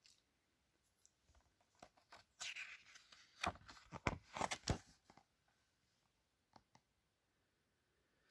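Pages of a hardcover picture book being turned by hand: paper rustling and flapping with a few sharp clicks, mostly in the middle few seconds.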